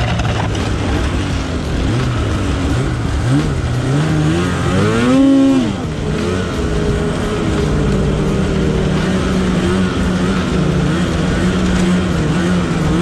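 Polaris Switchback Assault snowmobile's two-stroke engine running under way on a snowy trail. About five seconds in it revs up and drops back, then settles into a steady cruise.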